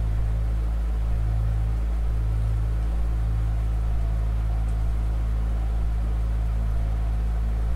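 A steady deep drone: a strong low hum with several held low tones stacked above it and a faint hiss on top. The tone band near the middle of the stack dips briefly about one, two and three seconds in.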